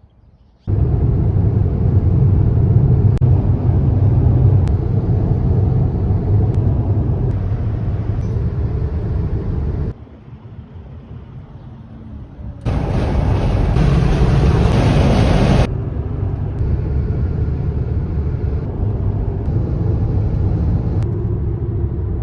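Road and wind noise of a car driving, a steady low rumble in several clips cut one after another. The noise drops away for a couple of seconds near the middle, and then a louder, hissier stretch of about three seconds follows.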